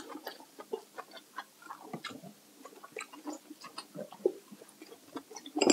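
Eating sounds: chewing and wet mouth smacks, close to the microphone, coming as irregular soft clicks several times a second.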